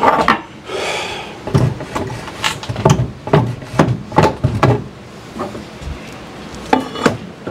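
Irregular wooden knocks and clunks as a loosened cedar bar top is shoved and worked free, with a brief scrape about a second in.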